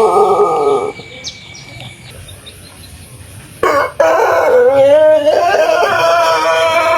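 Pelung rooster crowing: the end of one long crow slides down in pitch in the first second, then after a short pause a new long crow starts about three and a half seconds in, wavering in pitch at first and then held steady.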